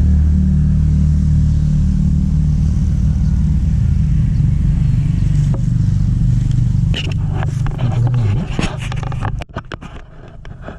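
A nearby engine runs steadily with a low hum, then stops about nine seconds in. Knocks and handling noises follow near the end.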